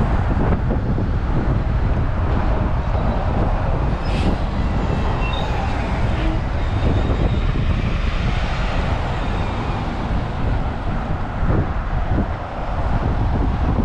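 Road traffic passing: cars and an articulated city bus driving by, a steady rumble of engines and tyres.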